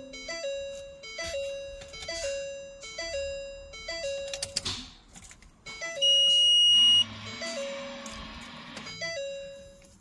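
Vehicle warning chime ringing over and over, a two-note ding a little more than once a second, with the ignition on in the truck's cab. About six seconds in, a loud high-pitched beep holds for about a second, then a steady hum with a hiss runs for about two seconds.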